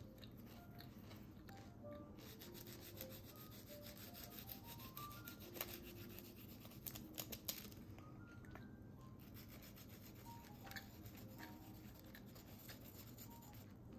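A peeled garlic clove rubbed back and forth across the face of toasted crusty bread: soft, quick rasping strokes, thickest in the middle stretch, with faint background music underneath.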